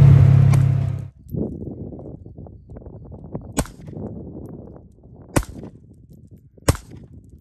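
An off-road side-by-side's engine running for about the first second, then cutting off. Three single handgun shots follow, about a second and a half apart.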